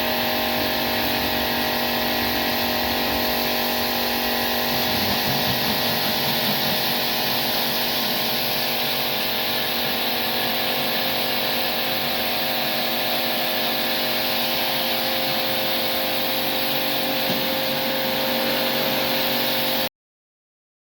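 A motor-driven machine running steadily, a constant hum under a strong, even hiss. It cuts off abruptly near the end.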